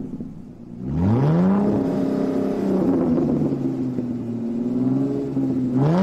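Car engine revving: the pitch climbs sharply about a second in, holds at a high rev with small rises and dips, and climbs again near the end.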